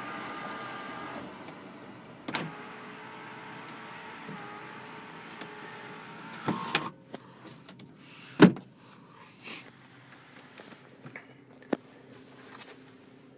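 A 1999 Volvo S80's electric window motor runs with a steady whine as the glass moves. The whine changes about a second in and stops with a thump about halfway through. A few sharp knocks and clicks follow, the loudest about two-thirds of the way in.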